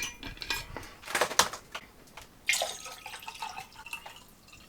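Wet chewing of a mouthful of mince pie: irregular mouth clicks and smacks, with a short noisy patch about halfway through.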